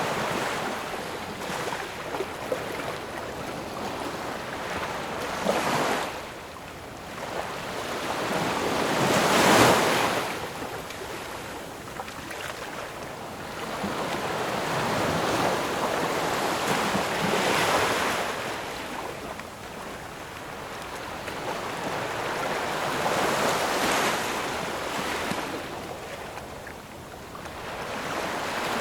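Ocean waves breaking and washing up on the shore, swelling and falling away every several seconds, with the loudest break about a third of the way in.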